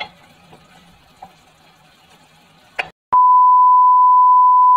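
Faint background noise for about three seconds, then a click and a loud, steady 1 kHz test-tone beep: the tone that goes with a colour-bars test card, used here as a video transition.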